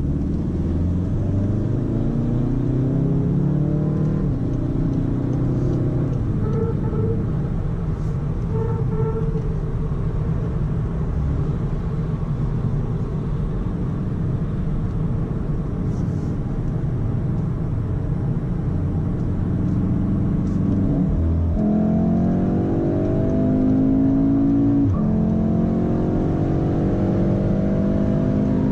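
Volkswagen Golf accelerating hard from inside the cabin: the engine climbs in pitch through the gears, with sudden pitch drops at the gear changes, two of them a few seconds apart near the end, over steady road noise.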